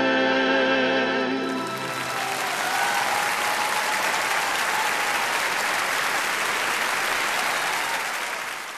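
Audience applause, starting about a second in and continuing steadily, fading out at the very end. It covers the song's last held chord, which ends in the first two seconds.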